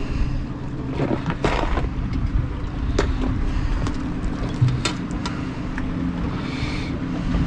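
Boat engine idling with a steady low hum, with a few sharp knocks and clacks as a fish and a plastic measuring board are handled on the deck.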